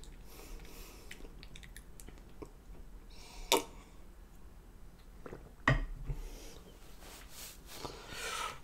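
A person drinking water from a plastic cup close to the microphone: quiet swallowing clicks, with a sharp click about three and a half seconds in and a louder knock near six seconds, then a breathy exhale near the end.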